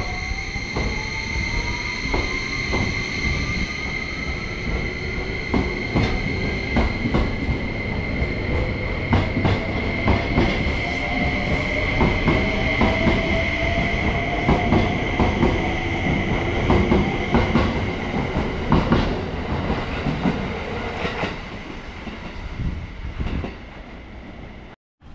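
E261-series Saphir Odoriko electric express train pulling out of the station and passing close by. The traction motors' whine rises in pitch as it gathers speed, over a steady high-pitched tone and wheels clicking over the rail joints. The sound fades away near the end as the last car passes.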